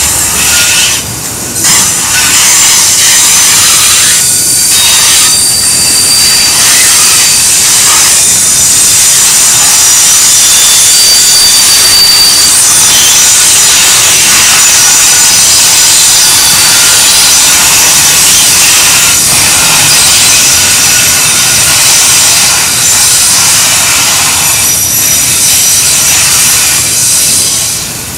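Autorack freight cars rolling past on a curve, their wheels grinding against the rails in a loud, steady, high-pitched hiss. A brief thin squeal comes about five seconds in and again around twelve seconds.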